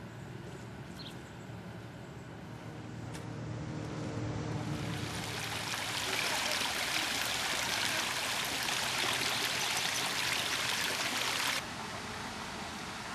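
A steady rushing noise like running water that swells over a couple of seconds, holds, and cuts off suddenly near the end.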